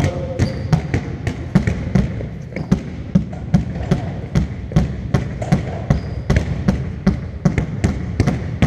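Two basketballs bouncing on a wooden court as players dribble, several bounces a second in an uneven, overlapping rhythm, echoing in a large sports hall.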